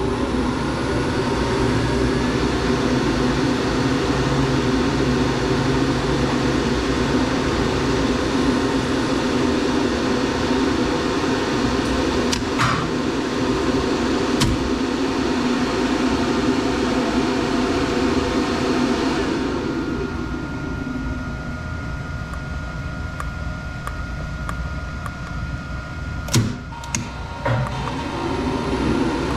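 Elevator machinery running with a steady mechanical hum, which winds down about two-thirds of the way through, leaving a faint steady tone; a few sharp clicks near the end.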